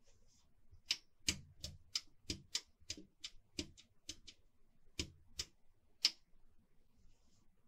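A run of sharp, irregular clicks and knocks, about three a second, as the metal-cased Behringer Eurorack UB2442FX-PRO mixer is handled and shifted on a table. They start about a second in and stop about six seconds in.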